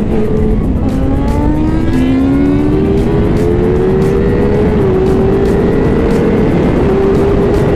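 Sport motorcycle engine pulling up through the revs under acceleration, with a drop in pitch about five seconds in like a gear change, then holding steady, over heavy wind rush on the microphone.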